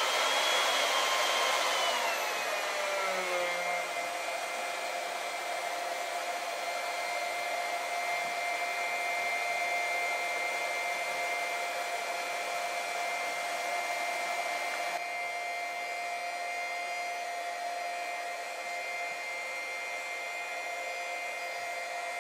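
Small electric water transfer pump starting up and running with a steady whine while pumping liquid ballast through a hose into a tractor tire. Its pitch drops over the first few seconds, then holds steady.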